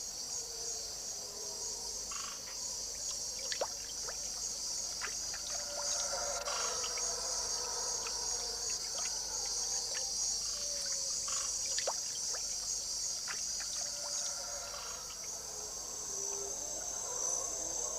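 Tropical rainforest night chorus: a steady, high-pitched insect trilling throughout, with scattered short frog calls and clicks below it.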